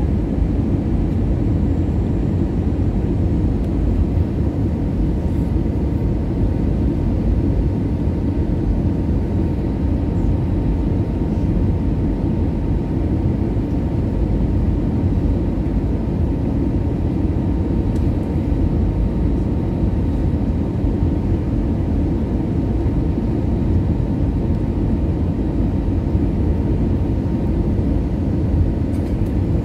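Steady low rumble of an Airbus A320ceo's cabin on final approach: its engines and the rushing airflow past the fuselage, with a faint steady tone above it.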